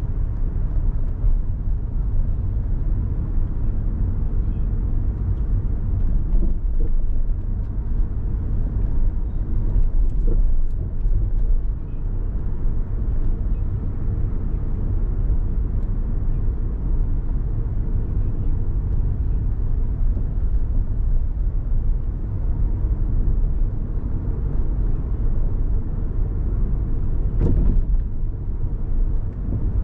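A car driving through city streets: a steady low rumble of engine and road noise. A short, sharper knock comes near the end.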